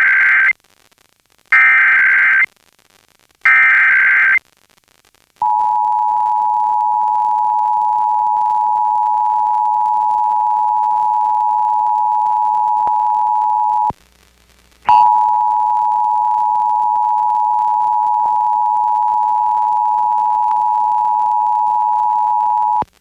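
Emergency Alert System broadcast for a required monthly test: three one-second bursts of SAME header data, then the two-tone EAS attention signal held for about eight seconds. After a one-second break the two-tone attention signal sounds again for about eight seconds.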